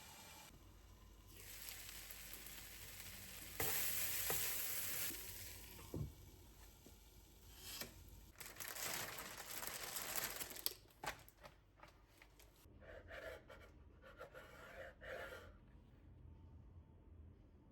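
Food sizzling in a frying pan in short spells, with a utensil clicking and scraping against the pan.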